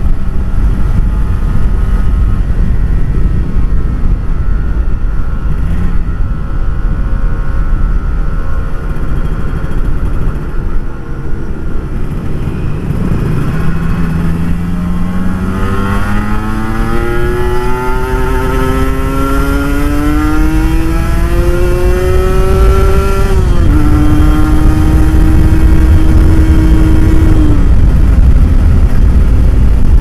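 Kawasaki Ninja RR 150 two-stroke single-cylinder engine with an Eighty Racing aftermarket exhaust, ridden over a heavy low rumble. Partway through it accelerates, its pitch climbing steadily for about ten seconds, then drops suddenly, holds steady for a few seconds and fades near the end.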